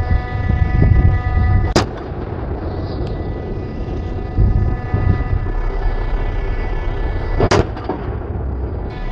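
A Bofors 57 mm Mk 3 naval gun fires two single rounds, about two seconds in and again about seven and a half seconds in. Under the shots runs a steady low rumble with a faint steady whine.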